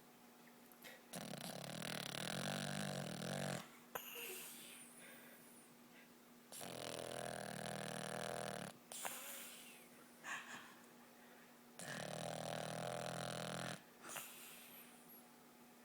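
Boston Terrier snoring in deep sleep: three long, buzzy snores about five seconds apart, with short snuffles in between.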